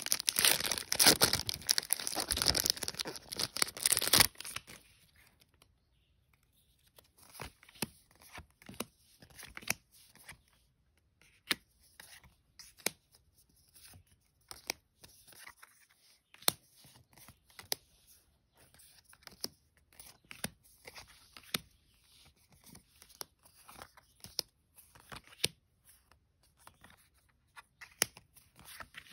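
A Magic: The Gathering Commander Legends booster pack wrapper is torn open, crackling and crinkling loudly for about four seconds. From about seven seconds in, light clicks and slaps follow as the trading cards are taken out and dropped onto a pile one at a time.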